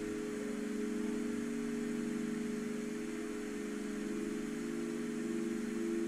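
Singing bowls (singing rin) ringing together in a sustained drone of several steady overlapping tones, one of them swelling near the end.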